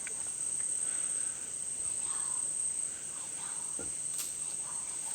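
Insects trilling in a steady, high-pitched chorus that holds one pitch without a break.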